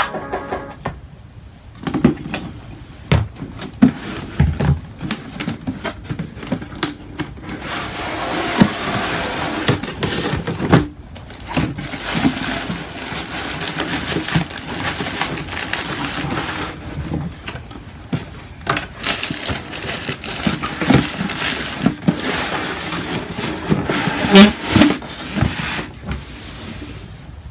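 Tissue paper rustling and crinkling while a cardboard sneaker box is handled, with scattered knocks and low thumps.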